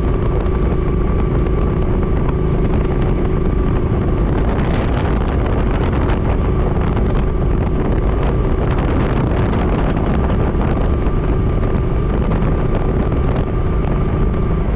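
Wind buffeting the microphone over a motorcycle engine running steadily at speed, with a faint steady whine on top: the 2006 Suzuki Boulevard C50's V-twin out on a ride.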